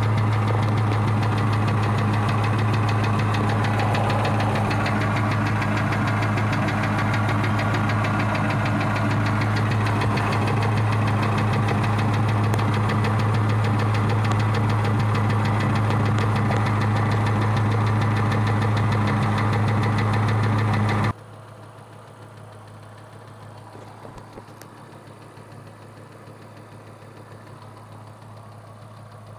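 Supercharged 4.6 L V8 of a 2003 Ford SVT Mustang Cobra idling steadily with a rapid ticking from the valvetrain, which the owner traced to a failing cam roller. About 21 seconds in, the sound drops suddenly to a much quieter level and the idle carries on faintly.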